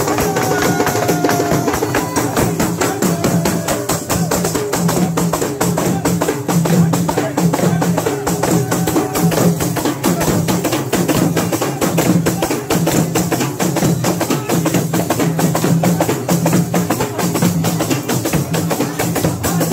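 Several daf frame drums beaten together in a fast, continuous rhythm, their jingles rattling with every stroke.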